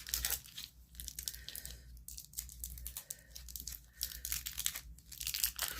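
Crinkling and tearing sounds, a dense run of small irregular crackles, as hands work a piece of modelling clay.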